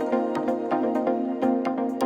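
Background electronic music with sustained synth tones and a steady beat.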